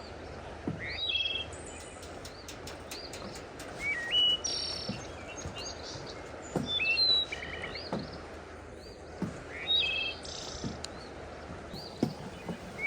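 Several small birds chirping and singing, with many short rising whistles and quick trilled notes, over a steady outdoor hiss. Soft footsteps thud at a walking pace about every second and a half underneath.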